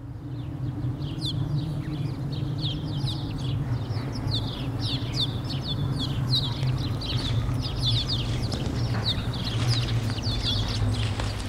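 A flock of small birds chirping rapidly and continuously, over a steady low hum, fading in over the first second.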